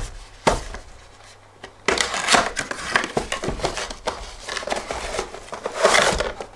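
Cardboard product box handled and opened: a single knock about half a second in, then rustling and scraping of the cardboard sleeve and plastic inner tray as they slide apart, loudest near the end.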